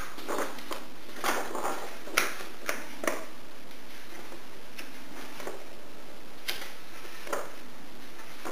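A book being handled and its pages turned: scattered short paper rustles and taps, several close together in the first three seconds and a few more later, over a steady hiss.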